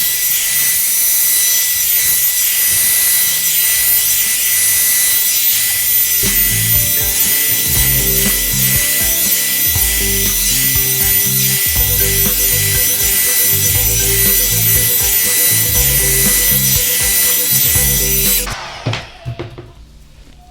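Revlon One-Step hair dryer brush blowing on its motor, a loud steady rush of air with a high whine, switched off near the end. Background music with a steady beat comes in about six seconds in.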